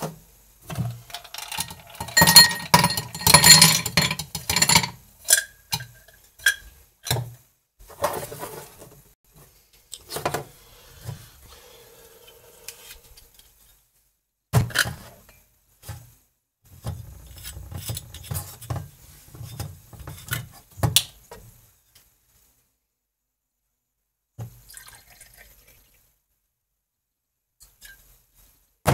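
Glassware clinking and ice cubes clattering into a glass tumbler, loudest in the first few seconds. Later come scattered knocks of glass on a steel counter and vodka being poured into a shot glass.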